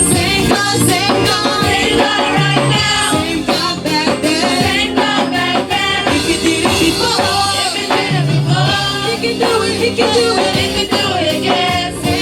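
Gospel praise singing in a church worship service: voices singing over instrumental accompaniment with a steady percussion beat.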